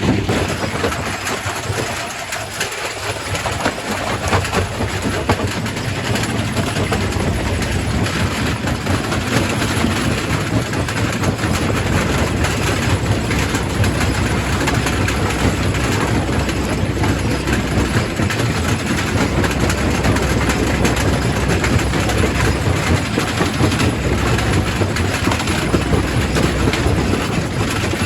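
Quarry primary rock crusher running under load: a steady low rumble of the machine with a dense, continuous clatter and cracking of rock being broken.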